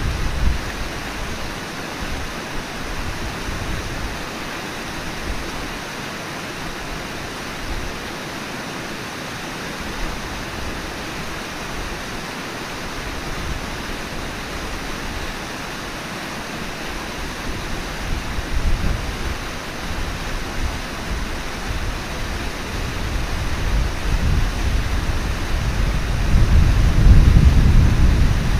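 Steady rush of river water, with gusts of wind rumbling on the microphone that grow stronger toward the end.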